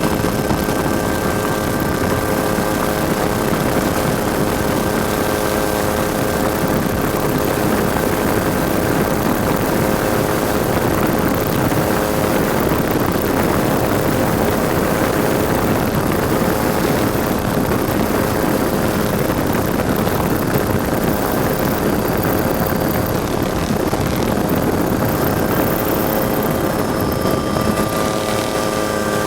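Ford EcoBoost spec trophy truck running steadily at speed, its engine holding a constant note under heavy, uneven rumble and rushing noise, with a few steady whining tones on top.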